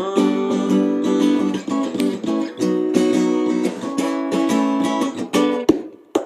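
Acoustic guitar strumming chords, breaking off near the end into a few separate strums.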